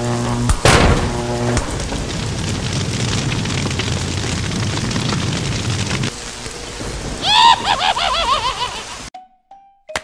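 Cartoon sound effects of heavy rain falling, with a loud crash about a second in as the power line breaks. Near the end comes a run of warbling electric zaps from the downed, burning line, then the sound cuts out to near silence with a few short tones.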